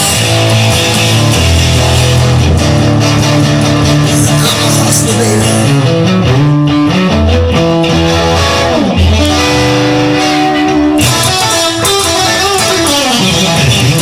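Instrumental passage of a song, with guitar playing over a bass line and no singing. Near the end a pitch sweep falls and rises again.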